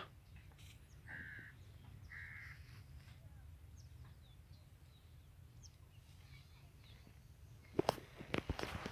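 A crow cawing twice, faint and harsh, about one and two seconds in, over a steady low rumble. Near the end comes a short run of sharp knocks and clicks.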